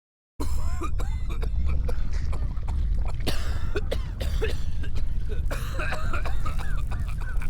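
Sick Sneezer animatronic's recorded voice coughing and clearing its throat in irregular fits, over a steady low hum. It starts after a brief moment of silence.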